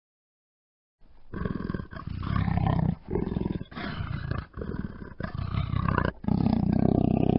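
Panther roaring and growling: silence for about the first second, then a run of rough, rasping roars, each about a second long with short breaks between them, the last running on unbroken near the end.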